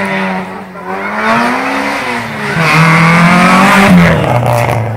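Rally car engine revving hard as the car approaches and passes close by, its note rising and falling through the gears. It is loudest about three to four seconds in, then the engine note drops sharply as the car goes past.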